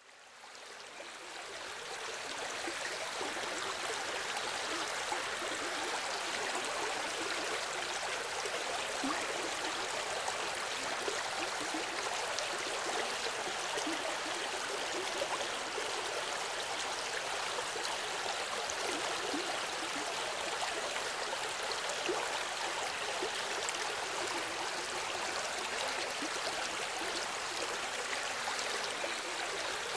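A small river flowing: a steady rush and babble of running water that fades in over the first few seconds.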